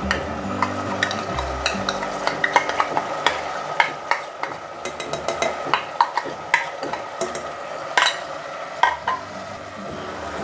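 Mutton frying in an aluminium pressure cooker with a steady sizzle. Many sharp clicks and scrapes come from a spoon scraping yogurt-spice paste out of a bowl into the pot and stirring it.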